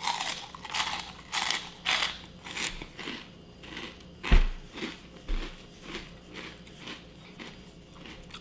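Mouthful of Cheetos crunched and chewed close to the microphone, about two crunches a second, growing softer toward the end. A low thump about four seconds in.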